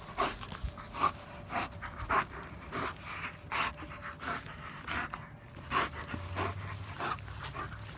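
German Shepherd panting close up, a breath roughly every half to three quarters of a second, with a stick held in its mouth.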